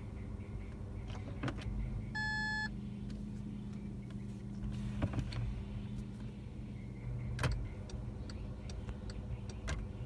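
Car engine idling, heard as a steady low hum from inside the cabin. A single electronic beep of about half a second sounds about two seconds in, and a few sharp clicks come at intervals.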